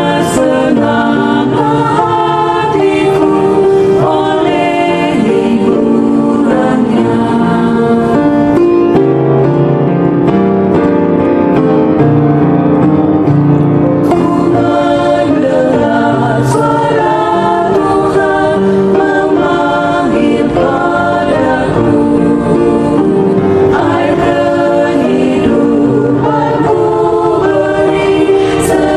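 A choir singing an Indonesian Christian praise hymn, several voices together in sustained, continuous song.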